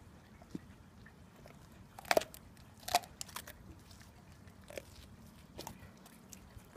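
Rhodesian Ridgeback biting at a raw tiger prawn, its teeth crunching on the shell in a few sharp clicks, the loudest two about two and three seconds in, with fainter ones after.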